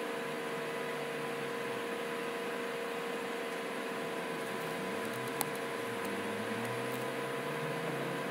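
Steady electrical hum and hiss with one clear tone, and a single sharp click about five seconds in.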